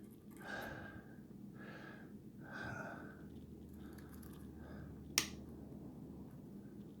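Soft breathing close to the microphone, four breaths in the first five seconds, with one sharp click about five seconds in from the lock-picking tools.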